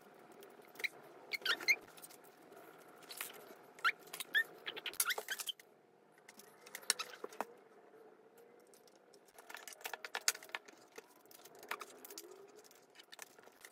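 Small plastic construction-kit parts clicking, rattling and squeaking as they are handled and pressed together. The clicks are irregular and mixed with short squeaks, with a quieter pause midway.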